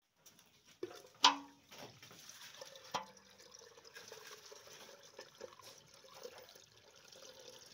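Fresh milk pouring in a steady stream from a metal pail through a cloth-lined plastic strainer into a metal milk can. There is a sharp metallic clank with a brief ring about a second in, and a smaller clank about three seconds in.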